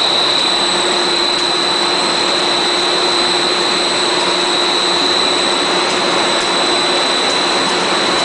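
Plastic sheet extrusion line running: a steady loud machine noise from its drive motors and gearboxes, with a constant high-pitched whine and a fainter low hum over it.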